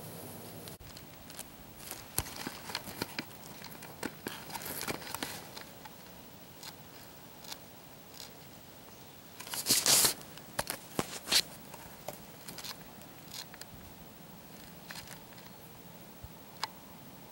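Close, irregular rustling and crinkling with scattered sharp clicks, loudest in a dense burst about ten seconds in.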